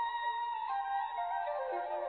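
Instrumental background music: long held melodic notes over a lower line that steps down about a second in, with no beat.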